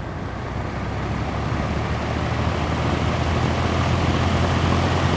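Vintage Emerson Electric 20-inch box fan starting up on low speed: the motor's low hum and the rush of air from the blade grow steadily louder as it comes up to speed.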